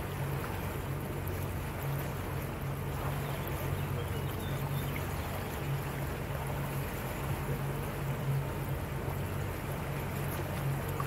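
Motorboat engine running steadily, a low pulsing hum, with water rushing along the hull.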